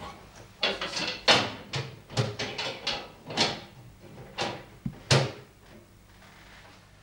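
Metal panels of a wall-mounted railway signal control panel clattering and knocking as they are handled and taken down: about ten sharp knocks and rattles, stopping about five seconds in.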